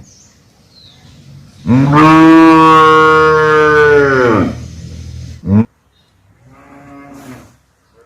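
Cow mooing: one long, loud moo lasting about three seconds, its pitch dropping as it ends. A brief loud sound follows, then a fainter moo near the end.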